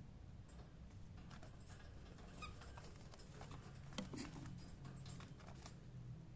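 Cockatiel making faint clicking and scratching sounds, with a louder knock about four seconds in and a brief soft peep about two and a half seconds in, over a low hum.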